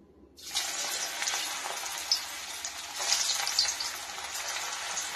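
Hot oil in a kadhai sizzling and crackling as a coated boiled baby potato is dropped in to deep-fry. The sizzle starts suddenly about half a second in, then carries on as a steady bubbling hiss with scattered pops.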